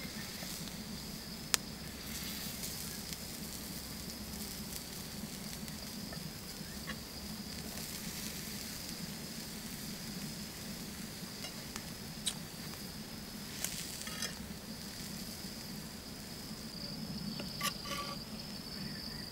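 Pig's liver sizzling steadily on a hot cooking rock, with a few sharp pops and crackles now and then.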